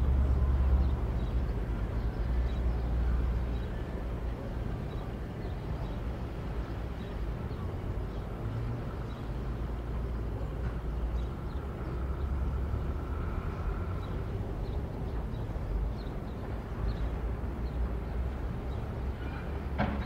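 Swimming-pool water lapping against the edge in an outdoor ambience, under a low rumble that is heaviest in the first few seconds and then eases. Faint bird chirps come through now and then.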